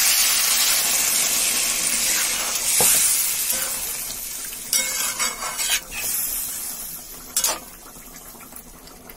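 Water poured onto fried spice paste in a hot kadai sizzles loudly, the hiss dying away over about four seconds as the masala stops frying. Then a metal spatula stirs and scrapes the pan in a few short strokes.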